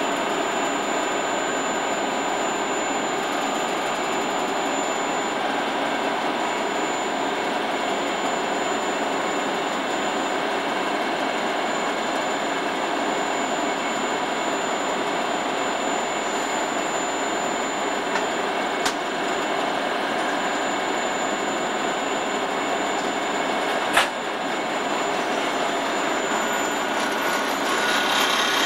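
A DB Class 103 electric locomotive standing with its cooling blowers running: a steady rush of fan noise with a few faint whining tones in it. There is one sharp click about 24 seconds in.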